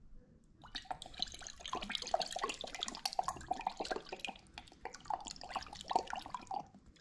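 Hot sauce pouring out of a tipped bottle into a glass measuring cup, glugging and spattering in quick, irregular spurts. It starts about half a second in and stops shortly before the end.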